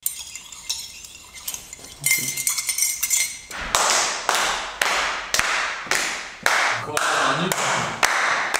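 Teaspoons stirring and clinking against mugs, then from about three and a half seconds in, steady rhythmic hand clapping, about two claps a second.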